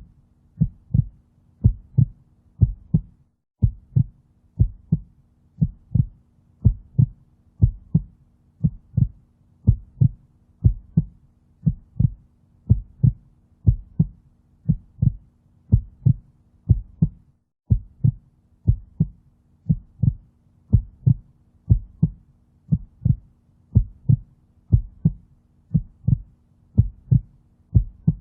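Heartbeat sound effect: a steady double thump, lub-dub, about once a second, repeating evenly over a faint steady hum.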